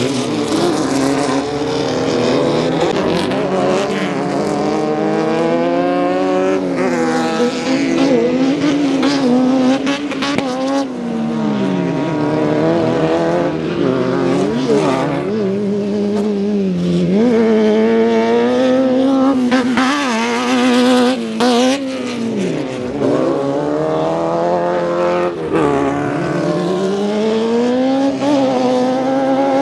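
Off-road race buggy engines running hard through a dirt short course, their pitch repeatedly climbing under throttle and dropping off on shifts and lifts as the buggies race past.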